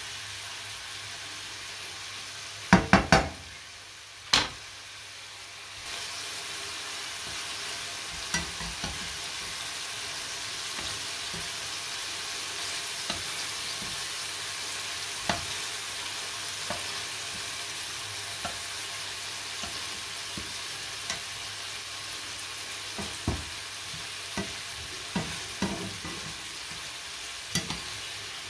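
Köfte sizzling steadily as they fry in a nonstick pan, with clicks and scrapes of a fork and spatula turning them. About three seconds in come three loud sharp knocks in quick succession, then one more a second later.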